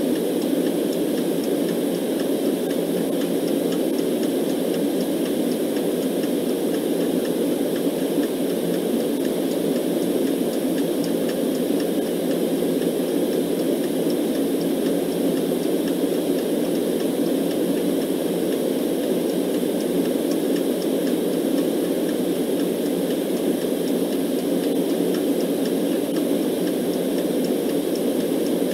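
Steady low rushing white-noise track, unchanging, with a clock ticking faintly over it.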